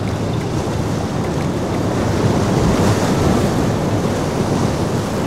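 Loud, steady rush of rough surf and churning boat wake, with wind buffeting the microphone.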